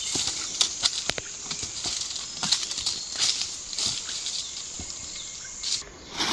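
Footsteps crunching through dry leaf litter and twigs on a forest floor, irregular crackling steps.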